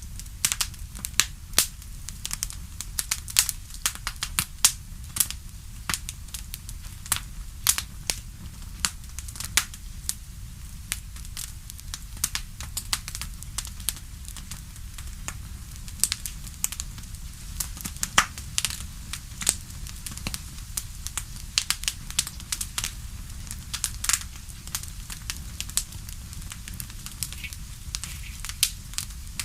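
Fire crackling in a fireplace: frequent irregular sharp pops and snaps over a steady low rumble.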